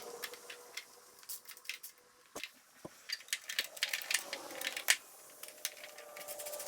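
A string of irregular light clicks and clinks of small hard parts being handled, with no engine running.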